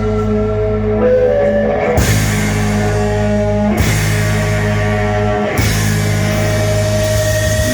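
Loud rock music with drums and guitar: sustained, droning chords over a steady low bass, shifting about every two seconds, with a bright cymbal-like wash cutting in and out.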